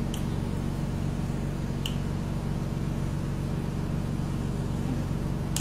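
Steady low machine hum, with two short faint clicks in the first two seconds.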